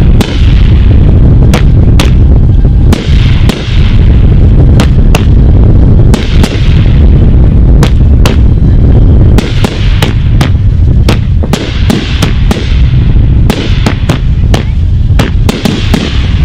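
A fireworks cake firing a continuous barrage: sharp reports, roughly two to three a second at uneven spacing, over a steady low rumble of booms, very loud throughout.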